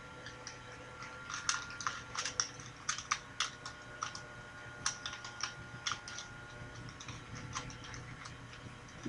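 A plastic 2x2x2 Rubik's cube clicking as its layers are turned quickly during a solve: irregular sharp clicks, one to a few a second. A faint steady hum runs underneath.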